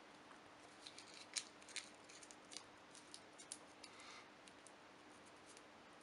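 Faint crinkling and crackling of kraft paper as the end of a paper cartridge for the Dreyse needle gun is twisted shut by hand, a scatter of soft crisp crackles in the first four seconds before it goes quiet.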